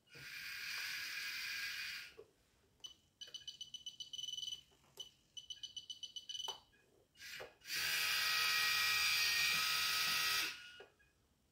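Small electric motors in an RC model battleship whirring as a gun turret turns. There is a steady whir for about two seconds, then two short runs of quick pulsing whirs, then a louder steady whir lasting about three seconds.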